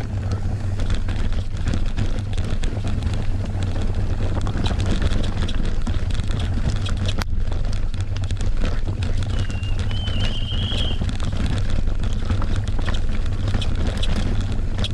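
Wind buffeting the microphone over the constant rattle and clatter of a full-suspension mountain bike riding fast over rough ground, with a brief high squeal about ten seconds in.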